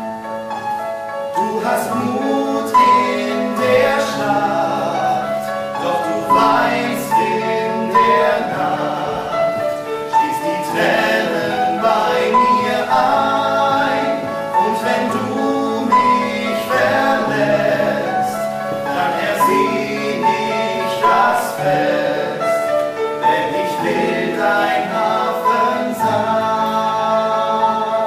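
Male voices singing a musical-theatre duet with upright piano accompaniment, held notes and phrases running continuously.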